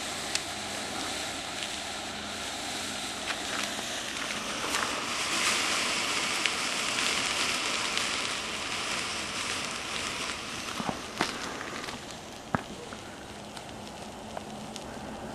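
Potassium nitrate and sugar smoke mixture, set in candle wax, burning in a foil-wrapped cap: a steady hiss that swells in the middle and eases off near the end, with scattered pops and crackles.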